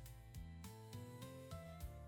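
Quiet background music: held notes stepping in pitch over a soft, regular beat.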